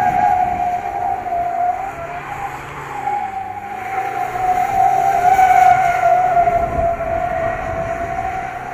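Tyres squealing in one long wavering screech as a Chevrolet Colorado pickup is driven in donuts, with its 2.8-litre Duramax four-cylinder turbodiesel running low underneath. The squeal eases about two seconds in and swells again around the middle.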